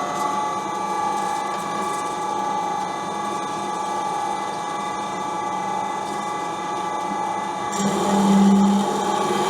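Hyd-Mech S-23 horizontal band saw running, its drive and gearbox giving a steady mechanical whine with several high tones. Near the end a louder, lower hum comes in.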